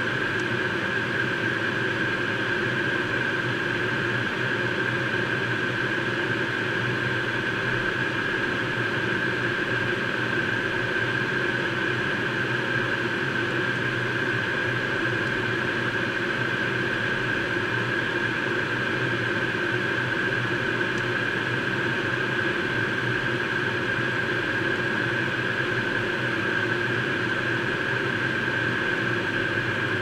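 Steady cockpit noise of a Learjet 35A in high-altitude cruise: rushing airflow over the cockpit and the hum of its two rear-mounted Garrett TFE731 turbofans, with a steady high tone running through it.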